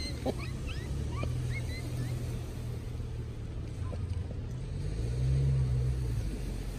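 Steady low engine rumble that swells about five seconds in, with a few short rising bird chirps in the first second and a half.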